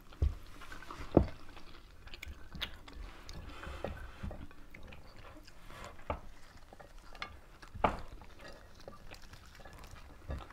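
Close-up eating sounds of people eating with their hands: chewing with scattered sharp clicks and small knocks, the loudest about a second in and again near eight seconds.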